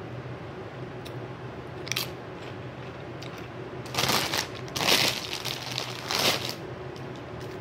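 Close-miked crunching of chips being bitten and chewed: a small crunch about two seconds in, then several loud crunches between about four and six and a half seconds in.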